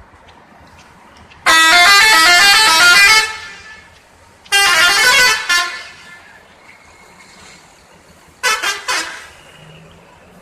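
Telolet multi-tone musical bus horn sounding a melody of stepping notes. A long loud blast starts about a second and a half in, a shorter one comes about three seconds later, and a few quick toots sound near the end.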